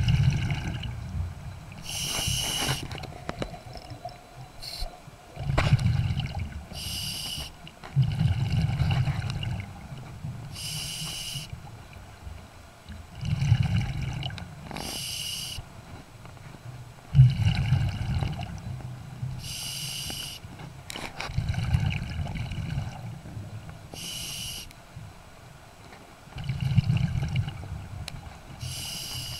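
Scuba diver breathing through a regulator underwater: a short hiss of inhalation every four to five seconds, each followed by the low bubbling rumble of exhaled air bubbles.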